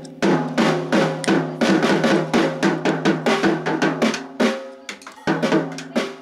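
A child playing a drum kit: a fast run of drum strikes, about four or five a second, with the drums ringing on between hits. It breaks off briefly a little past four seconds, then a few more hits follow near the end.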